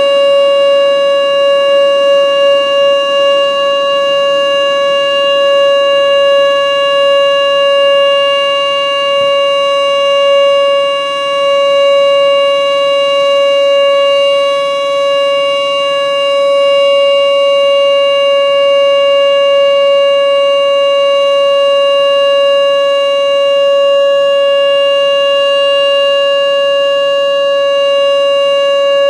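Whelen WPS-2910 electronic outdoor warning siren sounding its alert signal: one loud, steady tone held at constant pitch throughout, with no rise or fall.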